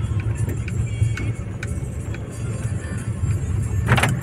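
Car driving, heard from inside the cabin as a steady low rumble of engine and tyres, with background music playing over it. There is a brief swishing streak about four seconds in.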